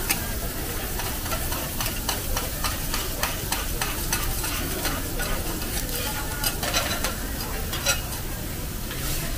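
Two metal spatulas clicking and scraping on a teppanyaki steel griddle as egg fried rice is chopped and turned, in many quick irregular strikes over the steady sizzle of food frying on the hot plate.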